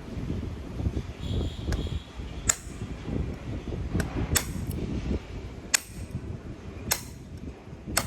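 Hammer tapping the armature out of an electric jigsaw: about five sharp metallic knocks, a second or so apart, with low handling noise between them.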